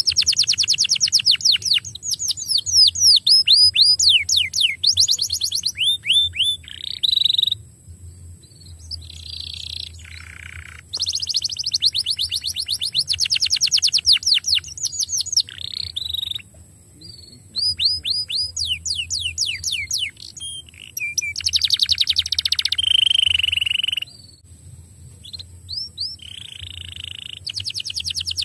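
Domestic canary singing: fast trills of rapidly repeated down-slurred notes, in phrases of a few seconds broken by short pauses, with some held buzzy notes between them.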